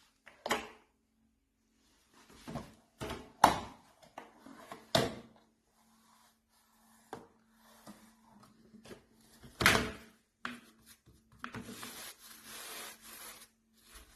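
Irregular knocks, clicks and rubbing of objects being handled, loudest about a third of the way in and again past the middle, with a couple of seconds of rustling noise near the end and a faint steady hum underneath.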